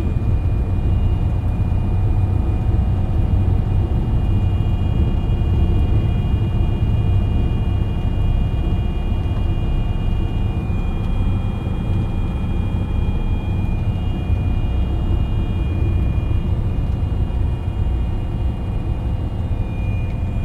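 Cab interior of a loaded semi truck rolling down a steep snowy grade in eighth gear, held back by its engine with the service brakes released: a steady low engine and road rumble with a faint, thin high-pitched whine over it.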